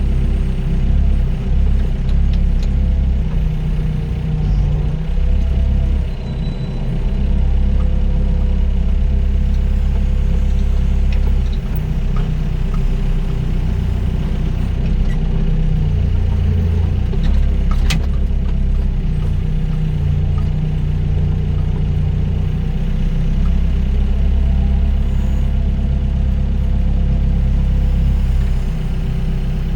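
Doosan DX55 mini excavator's diesel engine running under load while it digs and dumps soil, its sound swelling and easing as the work goes. One sharp click about two-thirds of the way through.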